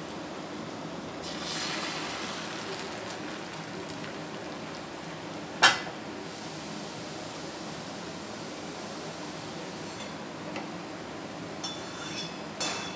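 Thin rice-and-coconut neer dosa batter cooking on a hot iron tawa with a steady sizzle. One sharp metallic clink about five and a half seconds in, and a few light clinks of steel utensils near the end.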